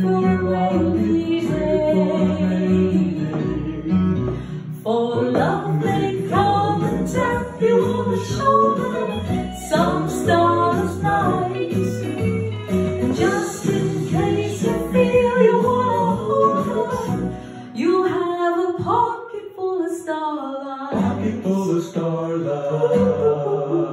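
A woman singing a song into a microphone over instrumental accompaniment.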